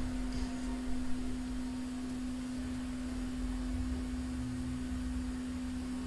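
A steady electrical hum of a single pitch, with a low rumble underneath.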